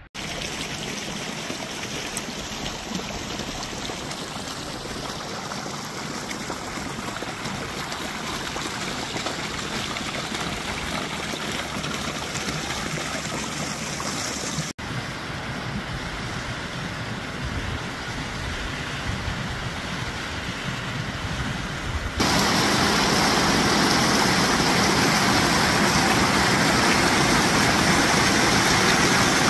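Whitewater of a mountain creek rushing and splashing down a narrow rock chute, a steady rush close by. It breaks off abruptly twice and is louder in the last stretch.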